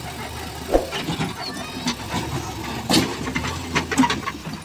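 Diesel engines of a JCB 3DX backhoe loader and a tractor running steadily, with a few sharp knocks and clatters as the loader's bucket works over the loaded trolley.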